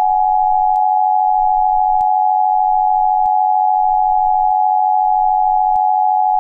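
Steady electronic alert tone at a single pitch, held unbroken: the attention signal that opens an emergency broadcast message.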